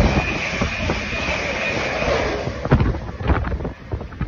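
Electric passenger train running past and away along the platform, a steady rush of wheels on rail with a faint high whine that fades after about two and a half seconds. Gusts of wind then buffet the microphone with irregular thumps.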